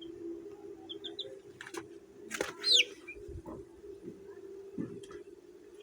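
Chicks peeping: a few short high peeps about a second in, then one loud, sharply falling peep near the middle, over a steady low hum.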